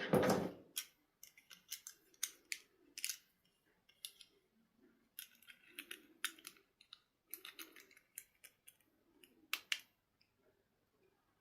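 A run of irregular sharp clicks and snips, about twenty of them, after a brief rustling thump at the start.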